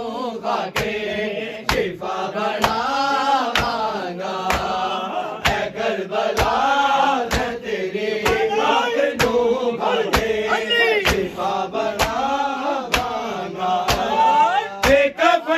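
A Punjabi noha chanted by male voices over rhythmic matam, hands slapping chests in unison about once a second.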